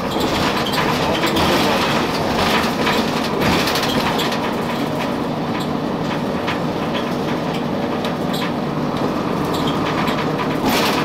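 Interior ride noise of a 2002 Blue Bird CS transit bus under way: its Cummins ISC diesel runs steadily under the rumble of the road, with frequent short rattles and clicks from the body.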